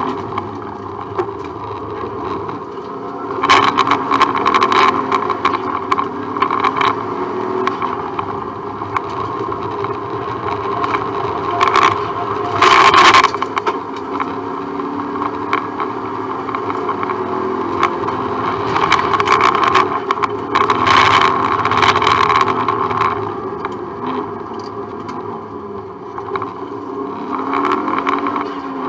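Subaru Impreza rally car's flat-four engine heard from inside the cabin at stage pace, revving up and down. Several times the sound swells into a louder rush of noise lasting a second or more.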